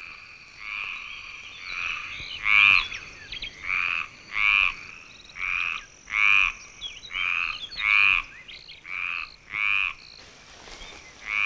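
A frog croaking over and over, short rattling calls about once a second, over a faint steady high-pitched tone.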